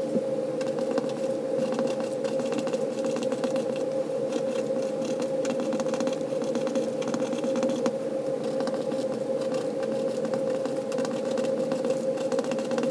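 Steady hum holding one constant mid-pitched tone, with light scratchy scraping over it.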